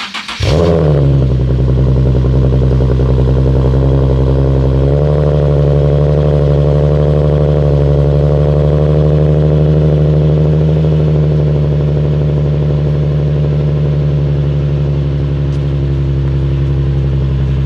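Car engine starting with a brief rev flare that falls back, then idling steadily; about five seconds in the idle rises slightly and holds.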